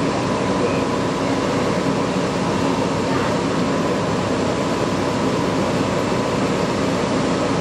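Steady, even mechanical drone of a parked fire engine running, with a faint constant whine over it and no change in level.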